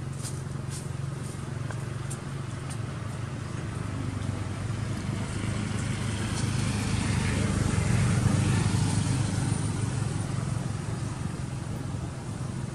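Low engine drone of a passing motor vehicle, growing louder to a peak about eight seconds in and then fading.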